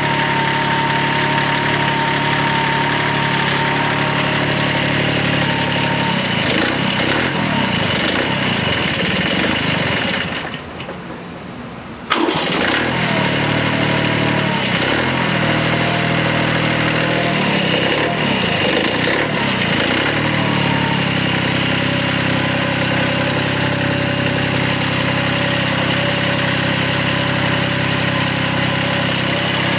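1993 Kubota B7100 tractor's three-cylinder diesel engine running on a blend of used frying oil, kerosene and gasoline, heard close to its exhaust muffler. It runs steadily, with stretches where the engine note wavers up and down. The sound fades briefly about a third of the way through, comes back abruptly, and then settles to a steady run.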